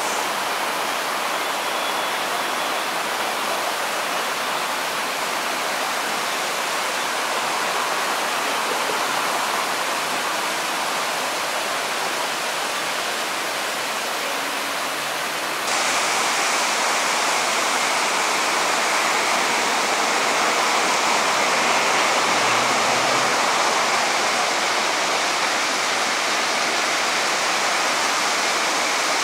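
Artificial waterfalls of the Mirage volcano cascading down the rock face into the lagoon: a steady rush of falling water. About halfway through it turns abruptly louder and brighter.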